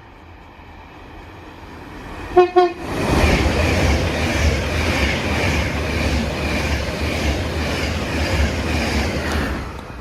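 A train sounds two short horn blasts about two seconds in, then passes through the station with a loud, steady rush of wheel and air noise. The noise cuts off sharply near the end.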